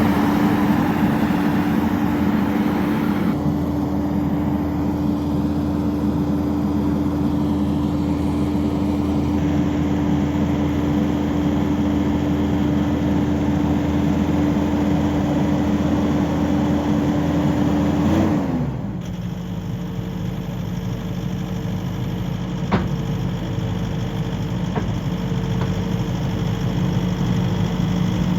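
Skid steer engine running steadily at high throttle, then throttled back to a lower idle about two-thirds of the way through. A single sharp knock comes a few seconds after the drop.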